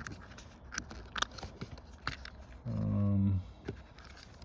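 Scattered small plastic clicks and scrapes of hands working a connector piece under a car seat, with a brief hummed 'hmm' from the man near the middle.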